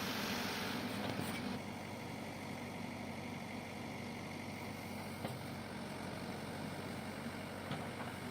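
Heavy diesel engine of the backhoe loader or tractor running steadily, with a loud hiss-like upper noise that drops away about one and a half seconds in. A few faint clicks follow later on.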